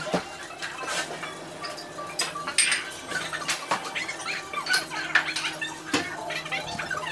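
Scattered clinks and clatter of dishes and cutlery, a short sharp tick every second or so.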